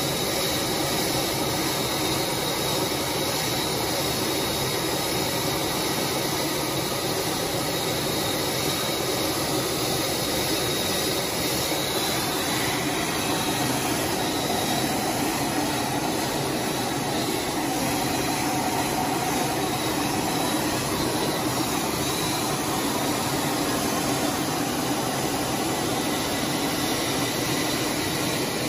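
Fighter jet cockpit noise in flight: the engine and rushing air make a steady, unchanging noise, with a faint high whine.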